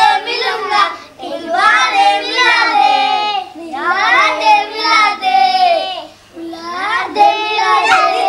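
Children singing with no instruments, in phrases of held, gliding notes with short breaks between them.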